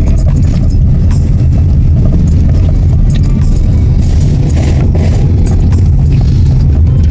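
Car driving on a bumpy road: a steady low rumble from the tyres and engine, with rattling and jangling from loose things in the cabin.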